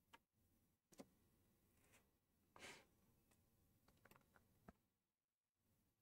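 Near silence: room tone with a few faint, scattered clicks and one short soft rustle about two and a half seconds in.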